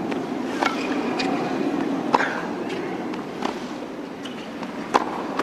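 A tennis rally: the ball is struck by racquets and bounces on the hard court, giving a sharp pop every second or so, over the steady low hum of the stadium crowd.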